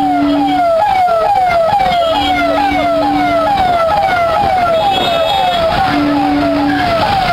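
Electronic siren sounding a fast, repeating falling wail, about two and a half falls a second. A car horn is held three times over it.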